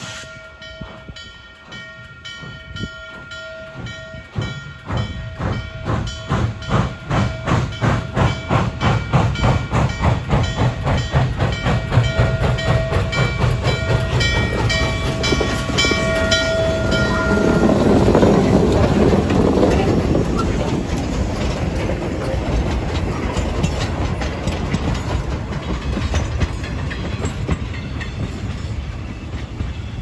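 Norfolk & Western J-class 611 steam locomotive working past, its chime whistle sounding in blasts over rhythmic exhaust chuffs. About eighteen seconds in the engine goes by with a loud rush of steam and exhaust. Then the train's cars roll past with steady wheel rumble and clatter.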